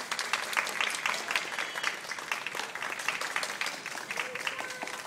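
Audience applauding: a dense patter of hand claps that carries on steadily.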